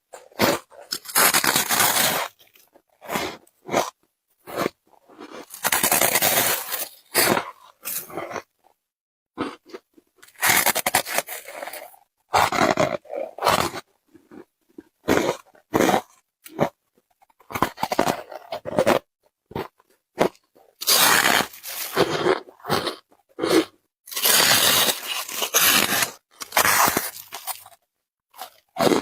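Close-miked biting and chewing of squeaky white freezer-frost ice, crunching in repeated bursts with short silent pauses between bites.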